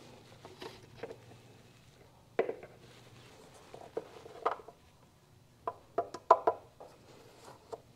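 Scattered plastic clicks and knocks as an oil-fill funnel and its red screw-in adapter are handled and pulled out of the engine's oil filler neck, with a quick run of clicks a little after the middle, over a faint low hum.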